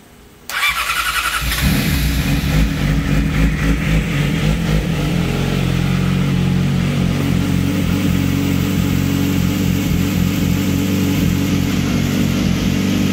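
2007 Yamaha R6's 600 cc inline-four engine started on the electric starter: it cranks from about half a second in and catches about a second later. It runs unevenly for a few seconds, then settles into a steady idle.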